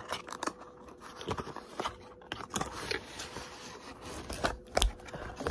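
Handling a cardboard perfume gift box: scattered clicks, taps and scrapes as long acrylic nails work the box open, with a louder thump near the end.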